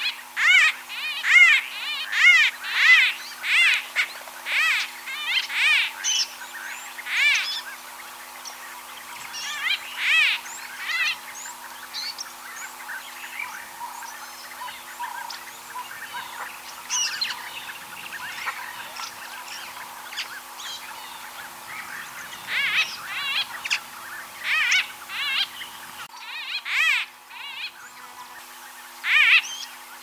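White-fronted bee-eater calling: short, quavering notes repeated in runs. There is a dense run of calls at the start, scattered calls in the middle, and another run a little after twenty seconds.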